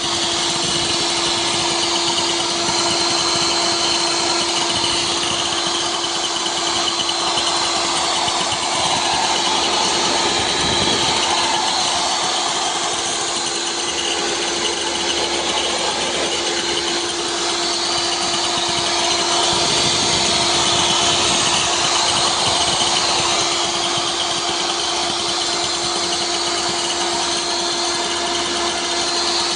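Makita table saw's electric motor running steadily, with a constant whine over the noise of the running motor.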